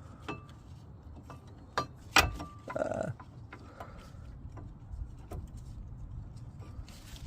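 Scattered metal clicks and clinks of a brake pad and its spring clips being worked into the caliper bracket, with one sharp click about two seconds in.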